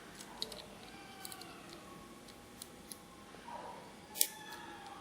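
Small, faint clicks of handling a mobile phone's small internal parts, then one sharp click about four seconds in as the camera module's cable connector is pressed home into its socket on the board.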